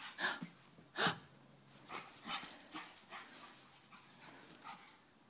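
A pug barking a few times in short bursts, mostly in the first three seconds.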